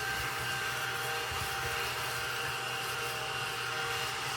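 Small vacuum cleaner running steadily with a high motor whine, sucking up the scratch-off shavings from a savings challenge card.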